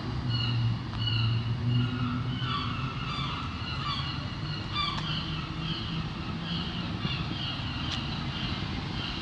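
Street sound: a low, steady engine hum with short high chirps repeating every half second or so.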